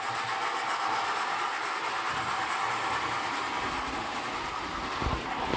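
Märklin BR89 model steam tank locomotive running along the track with its wagons: a steady electric motor whir and the rumble of small wheels on the rails. There is a short low thump about five seconds in.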